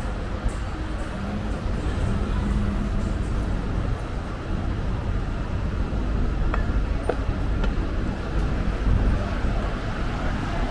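City street traffic ambience: a steady low rumble of passing road traffic, with a couple of faint clicks a little past the middle.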